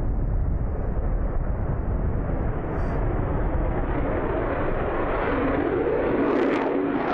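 F-35 Lightning II's Pratt & Whitney F135 turbofan passing low overhead with gear down: continuous jet noise, a low rumble at first that grows fuller and higher-pitched as the aircraft comes closer.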